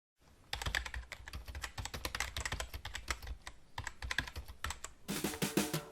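Rapid, irregular light clicking and tapping that starts about half a second in, much like typing, and turns into heavier strokes near the end.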